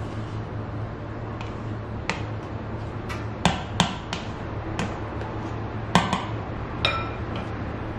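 A spatula scraping and knocking against a stainless steel mixer bowl full of buttercream, in a string of sharp irregular knocks. Near the end, one tap sets the bowl ringing briefly. A steady low hum runs underneath.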